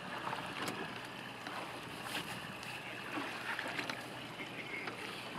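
Water lapping against a boat's hull over a faint, low, steady hum, with a few light ticks scattered through.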